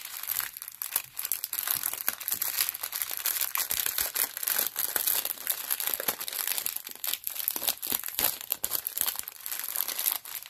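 Clear plastic bag of diamond-painting drills being handled, crinkling steadily with a dense run of small crackles and clicks.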